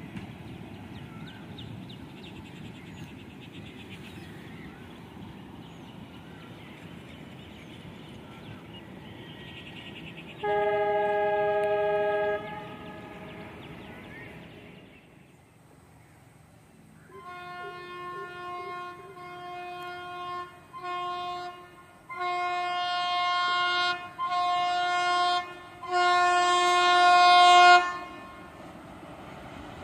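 Passing train rumbling on the rails, then a diesel locomotive horn sounds one blast of about two seconds. Later an approaching Alco diesel locomotive sounds its horn in about five blasts, the last the longest and loudest.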